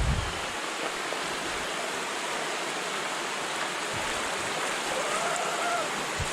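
Steady rush of river water and waterfall spilling over rocks, with a brief low bump at the start.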